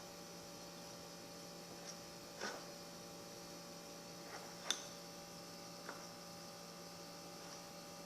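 Faint, steady electrical hum, with a few light clicks scattered through it.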